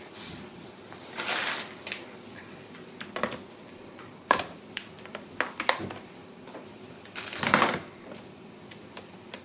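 Metal tin cans knocking and clinking as they are handled and set down among other cans in a plastic storage bin, a few sharp knocks in the middle, with two spells of rustling from the packaged goods near the start and near the end.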